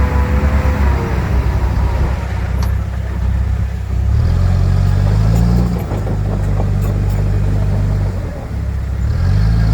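Heavy-equipment diesel engine running under load. It revs up about four seconds in and again near the end.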